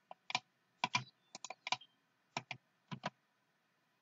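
Computer keyboard keys and mouse buttons clicking: about a dozen short clicks at an uneven pace, several in quick pairs, as keyboard shortcuts and mouse clicks are pressed.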